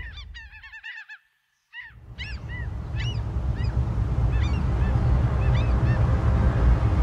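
Birds calling: a string of short, irregularly spaced honking calls over a low steady rumble, which cuts out briefly about a second and a half in and then swells back.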